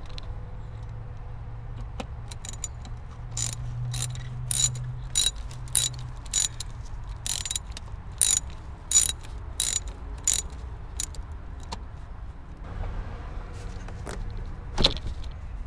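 Ratchet wrench clicking in short separate strokes, roughly one to two a second, as the fasteners of the air intake pipe are loosened. Near the end there is a single louder knock.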